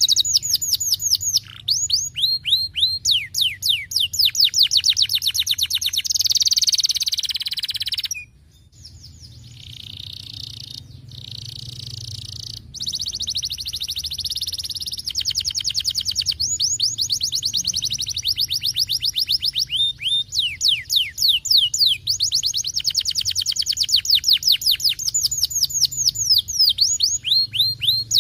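Domestic canary singing a fast, loud trilling song: rolls of quick downward-sweeping notes repeated many times a second. The song drops away suddenly about eight seconds in, comes back softer, and returns to full strength a few seconds later.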